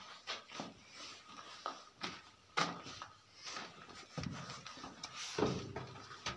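Soft footsteps and scuffs of someone walking into a cave, irregular, about one or two a second.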